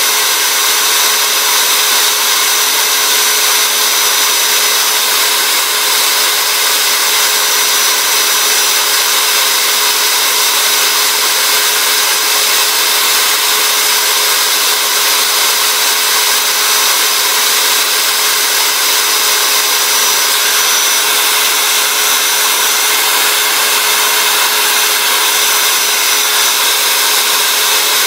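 Electric rotary tool running steadily with an abrasive drum grinding down a small wooden stick held against it: a constant motor whine over the even hiss of abrasive on wood.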